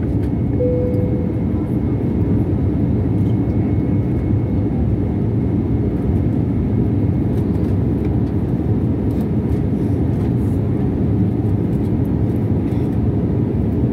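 Steady cabin noise of a jet airliner descending, heard from a window seat beside the wing: the engine and the rushing air make a deep, even rumble that does not change.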